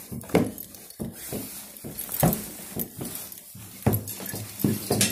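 A child's footsteps trudging slowly up carpeted stairs, a dull step roughly every second.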